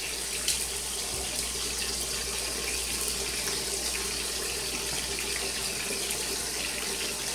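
Beef chuck roast searing in hot oil in a skillet: a steady sizzle with a few faint crackles.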